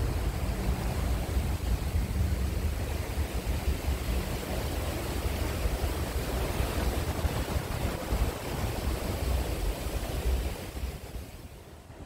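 Turbulent water rushing and churning in the outflow of a hydroelectric power plant: a dense, steady rush with a deep rumble underneath. It drops away and becomes much quieter about a second before the end.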